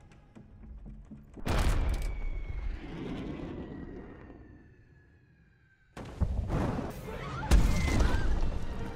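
Animated-film sound effects: a cannon blast, then the long falling whistle of the shell in flight, then explosions about six and seven and a half seconds in.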